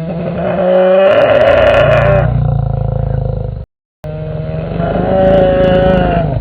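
Two long, loud roars made as home-made dinosaur sound effects, each a pitched, wavering call over a low rumble. A short dead silence separates them, a little past the middle.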